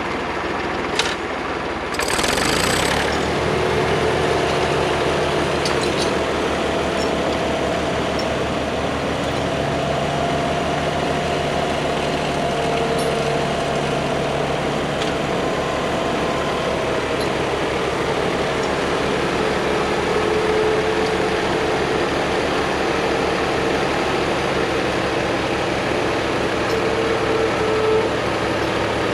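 Tractor engine running steadily while logs are pulled on its boom; about two seconds in there is a short burst of noise and the engine gets a little louder.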